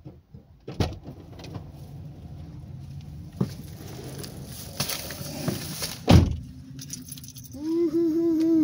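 A car door opens with a click, then a man gets into the driver's seat with keys jingling, and the door shuts with a loud thump about six seconds in. A short warbling tone follows near the end.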